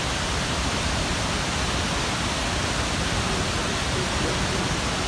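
Victoria Falls on the Zambezi River, water pouring over the gorge's edge: a steady rush of falling water.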